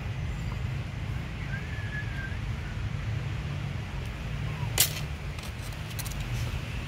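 Outdoor background of a steady low rumble with a few faint chirps, broken about five seconds in by one sharp crack, then a few fainter clicks.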